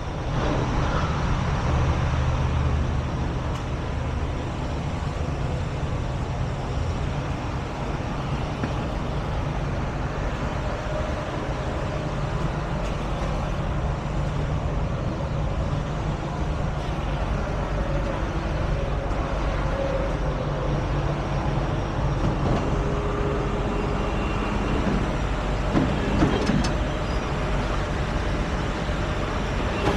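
A heavy truck engine running steadily, with a few faint clicks near the end.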